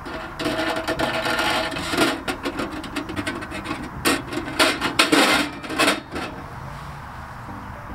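Thin stainless steel leg rod scraping and rasping as it is slid into its mount on the side of a titanium wood stove: a run of metal-on-metal strokes lasting about six seconds, with the loudest scrapes near the end before it stops.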